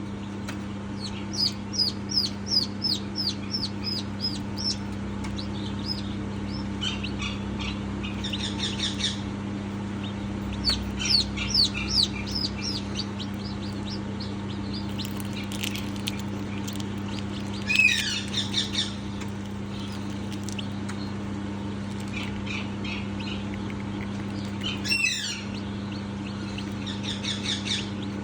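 Newborn chick peeping: runs of short, high-pitched, downward-sliding peeps with short pauses between runs and a few louder calls, over a steady low hum.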